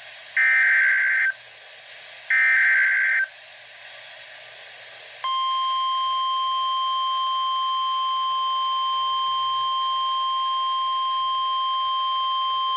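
Emergency Alert System signal from National Weather Service weather radio. Two short bursts of SAME header data, each a raspy warble about a second long, end a few seconds in. After a short gap, the weather radio's steady single-pitch warning alarm tone starts about five seconds in and holds, announcing a severe thunderstorm warning.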